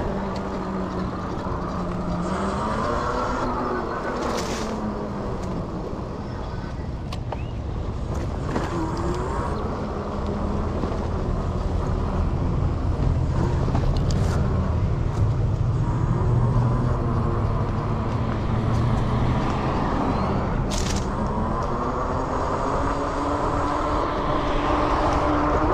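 Electric e-bike motor whining while riding, its pitch falling and rising with speed, over a steady rush of wind and road noise.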